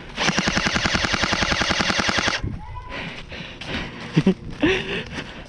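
Airsoft gun firing a full-auto burst about two seconds long: a rapid, even string of shots, about a dozen a second, that stops abruptly. A few brief sharp sounds follow near the end.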